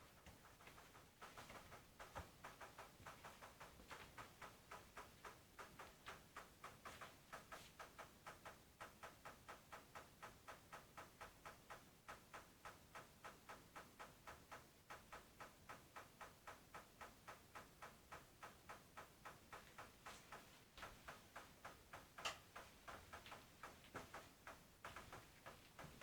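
Faint, steady run of knocking, about three knocks a second, with one louder knock about 22 seconds in.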